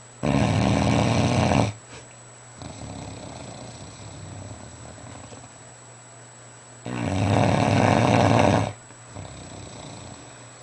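Fila Brasileiro mastiff snoring in its sleep: two loud snores about six and a half seconds apart, each lasting about a second and a half and followed by a quieter, longer breath out.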